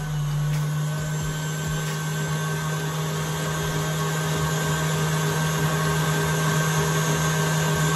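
Electric stand mixer running steadily at speed, its beater churning cake batter in a stainless steel bowl: a constant motor hum and whine that grows slightly louder over the stretch.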